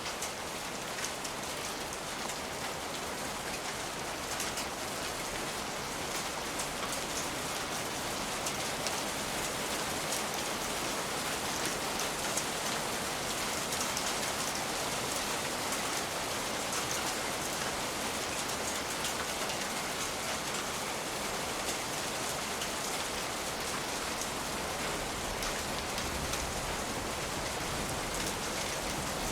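Steady rain falling on a surface: an even hiss with scattered light ticks throughout.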